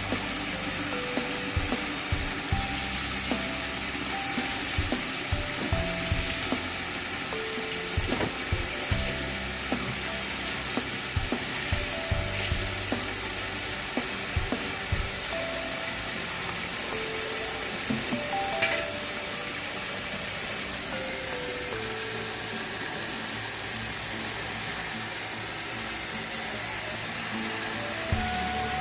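Steady hiss of water pouring from a plastic tap into a bucket, under background music with a stepping melody and bass line.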